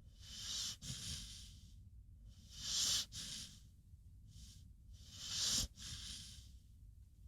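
American Pitbull Terrier snoring in its sleep: three slow, hissy breaths about two and a half seconds apart, the second and third the loudest, each followed by a softer breath.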